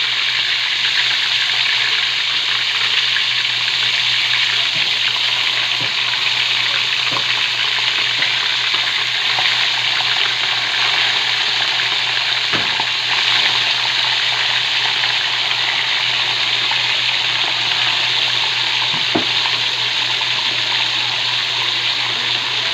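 Slices of tulingan (bullet tuna) frying in hot oil in a wok: a steady sizzle, with a few faint pops.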